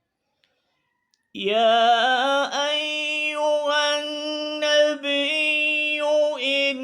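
A man's voice reciting the Quran in melodic tajweed style. It comes in about a second in and holds long, drawn-out notes at a steady pitch, with only short breaks between them.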